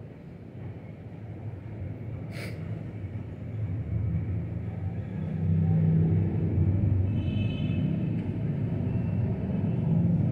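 Low rumble of a motor vehicle engine that grows louder over the first six seconds and then holds. A brief sharp chirp comes about two and a half seconds in, and a short high tone near seven seconds.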